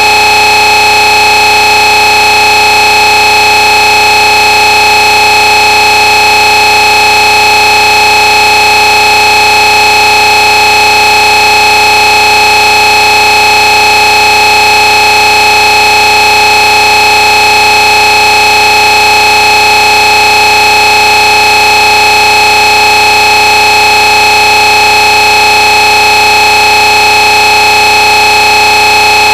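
Loud, distorted electronic siren effect from a DJ track, held at one steady pitch with several tones stacked over a hiss.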